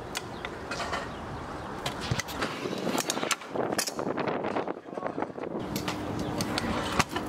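Stunt scooter rolling on rough asphalt: a steady rumble from the small wheels, broken by sharp clacks as the deck and wheels knock against the ground and the concrete curb, the loudest near the end.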